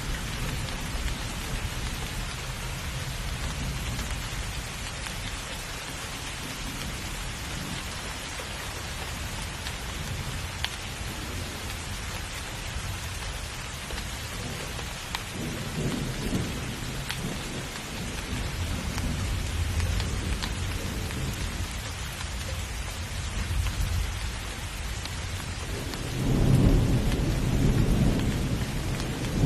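Steady rain falling in a thunderstorm, with rolling thunder: low rumbles around the middle, then a louder roll of thunder building near the end.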